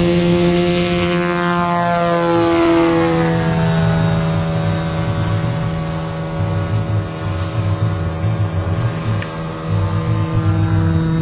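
Radio-controlled model biplane's piston engine running at full throttle through the takeoff and climb-out, a steady buzzing tone with strong overtones. Its pitch sags slightly over the first few seconds, then holds steady.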